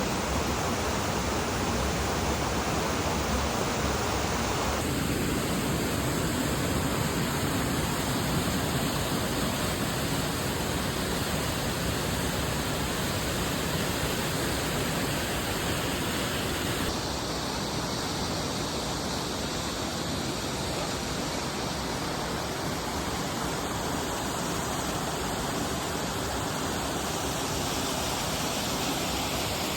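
Waterfall rushing: a steady wash of falling water, its tone shifting abruptly about five seconds in and again about seventeen seconds in.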